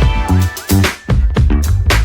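Background music with a heavy bass and drum beat.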